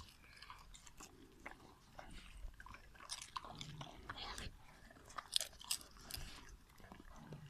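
Labradors crunching and chewing popcorn picked up off a rug: a scattered run of small, sharp crunches that grows busier and louder about halfway through.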